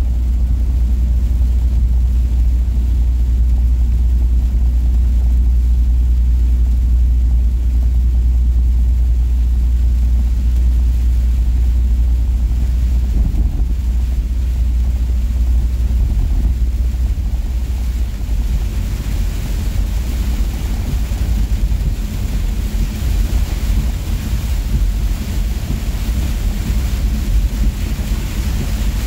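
Inside a tractor-trailer cab at highway speed: a steady low engine and road drone, with heavy rain and wind hissing against the windshield. The rain hiss swells noticeably about two-thirds of the way through as the downpour gets heavier.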